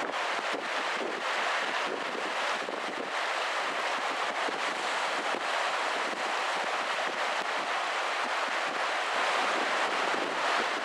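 Steady rushing of a river running high and fast after a typhoon: the swollen Sagami River, a continuous even roar of water with no breaks.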